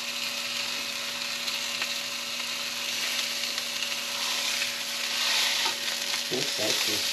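Caribou roast searing in hot olive oil in a frying pan: a steady sizzle that swells about four to five seconds in, as the roast is turned over with a fork.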